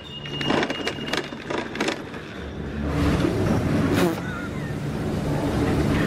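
Chairlift drive machinery and bullwheel running with a steady low mechanical rumble, growing louder about three seconds in as the loading station nears. Footsteps crunch in the snow in the first two seconds.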